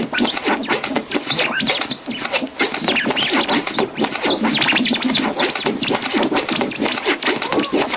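Electronic music crowded with quick squealing pitch sweeps that rise and fall several times a second, like record scratching.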